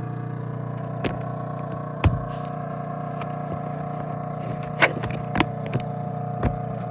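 Steady mechanical hum of an aquarium filter pump, with several short sharp knocks and taps on top, the loudest a little under five seconds in.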